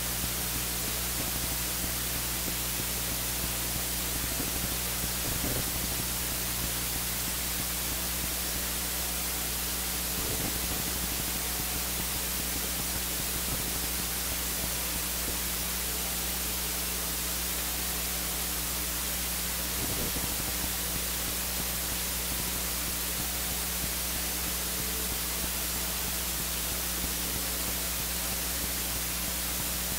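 Steady hiss with a low electrical hum underneath, the noise floor of the recording feed; no singing or organ stands out.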